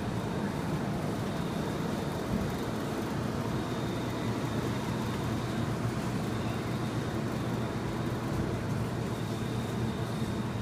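Steady low hum of supermarket refrigerated display cases and store machinery, with a faint high whine that comes and goes.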